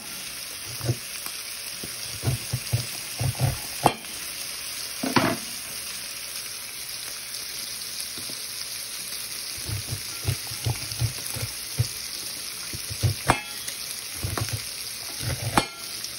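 Diced bacon sizzling steadily in a skillet, with irregular short knocks and scrapes as kernels are cut from an ear of corn into a metal bowl, and a few sharper clicks.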